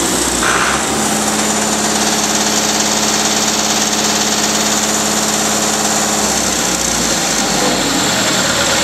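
Perkins 1004-40T four-cylinder turbocharged diesel engine running, held at a steady speed for several seconds; about six seconds in its steady note breaks up as the engine speed changes.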